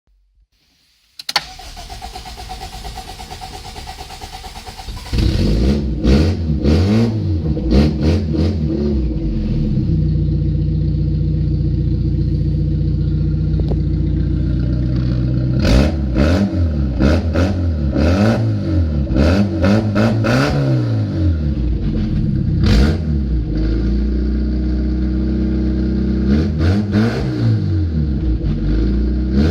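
Toyota 4A-F 1.6-litre four-cylinder engine of a 1989 Carina being started: a click, the starter cranking for about four seconds, then the engine catching. It is then revved up and dropped back several times, settling to a steady idle between the blips.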